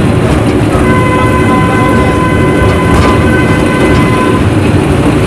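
Park toy train in motion, a loud steady running rumble, with a steady pitched tone held for about three and a half seconds from about a second in.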